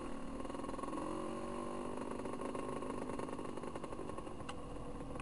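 Off-road trail motorcycle engine running along a dirt trail, its note rising and falling with the throttle.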